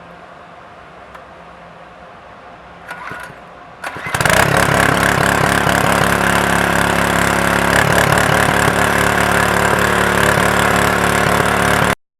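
The small petrol engine of an МРС БК rail-drilling machine starting: a short rasp about three seconds in, then it catches about four seconds in and runs loudly and steadily until the sound cuts off abruptly near the end.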